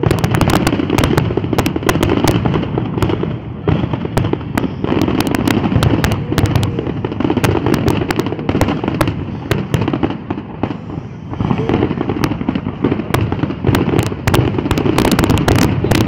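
Aerial fireworks shells bursting in a dense, continuous barrage of booms and crackles, easing briefly about ten seconds in.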